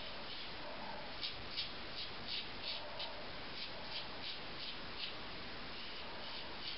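Gillette Slimtwist double-edge safety razor with a Wilkinson Sword blade scraping through lathered stubble in short, quick strokes, about two or three a second, over a faint steady hiss.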